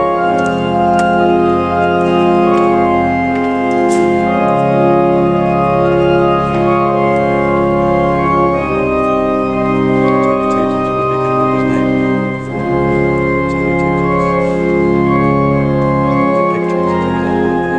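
Church pipe organ playing slow, sustained chords, each held for a second or more before the harmony shifts.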